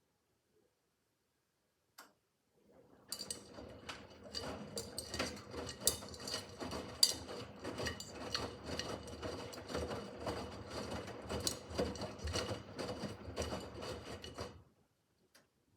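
Miele W5801 washing machine's drum turning during the wash cycle of an easy-care 30 °C programme. The laundry tumbles with a dense run of clicks and rubbing, starting about three seconds in and stopping about a second before the end. A single click sounds just before the drum starts.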